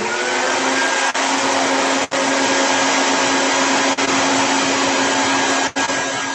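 Vacuum motor of a coffee bean cooler running steadily with a whine, drawing air down through a sieve of freshly roasted coffee beans to cool them.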